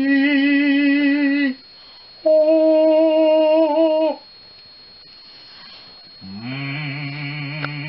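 Basset hound howling: two long howls with a wavering pitch, the second slightly higher, then a lower, quieter drawn-out howl near the end.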